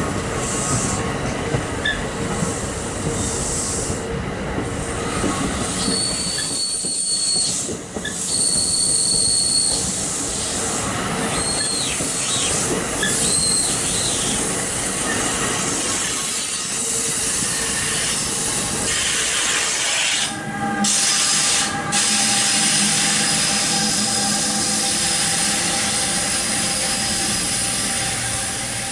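Commuter train rolling through the station with a steady rumble, its wheels squealing on the rails in high-pitched squeals that come and go in the first half, some of them gliding in pitch. In the last third the train gives a steadier, lower running tone.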